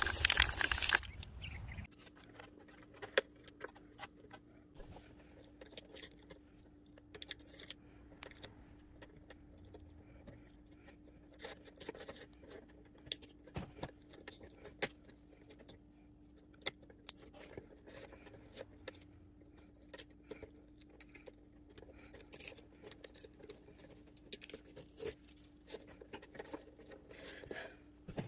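A loud rushing noise for about the first second, then it cuts off. After that come faint, scattered clicks, taps and crinkles of hands handling painter's masking tape on the plastic rotary dial of a telephone, over a steady low hum.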